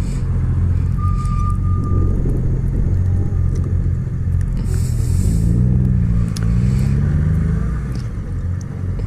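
Motorcycle engine running steadily at low town speed, heard from the rider's helmet, with the engine note rising and falling between about five and seven and a half seconds in. A brief hiss of wind about five seconds in.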